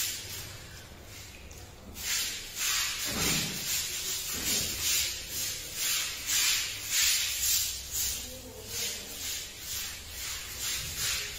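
Broom scrubbing a wet tiled floor in quick back-and-forth strokes, about two a second, after a short pause near the start.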